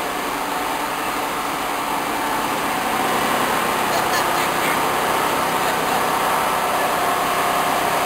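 Plastic film washing line running: motor-driven paddle shafts in a washing tank turn wet shredded plastic film through water, making a steady machinery noise. It grows slightly louder about three seconds in.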